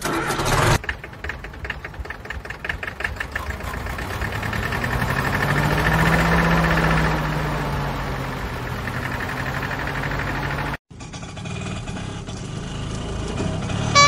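An engine starts and runs with a rhythmic chug, its pitch swelling and then falling in the middle, with a brief dropout near the end. Most likely a sound effect laid over the toy vehicles, since toys cannot make this sound.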